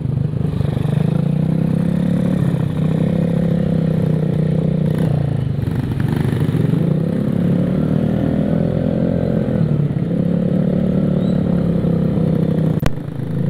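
Vespa automatic scooter's single-cylinder engine, bored out to 63 mm and still being run in, running under way with road noise. Its pitch rises and falls gently as the throttle is eased on and off. There are two sharp clicks near the end.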